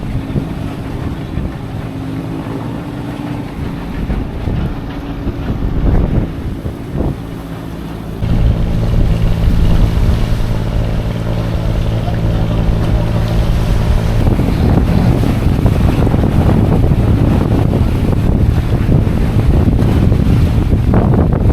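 A boat engine running with a steady hum that gets louder about eight seconds in. About fourteen seconds in the engine tone gives way to heavy wind rushing on the microphone.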